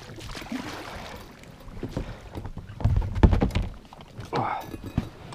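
Inflatable PVC boat being handled at the water's edge: rubbing and knocking on the hull and gear, with a cluster of heavy low thumps about three seconds in.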